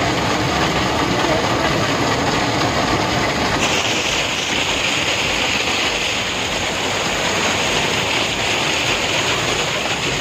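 Waterfall rushing over rocks: a steady, loud noise of falling water. About three and a half seconds in, it turns brighter and hissier, with the splashing water close by.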